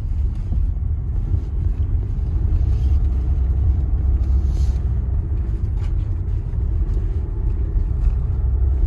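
Car driving, heard from inside the cabin: a steady low road and engine rumble, with a faint steady hum.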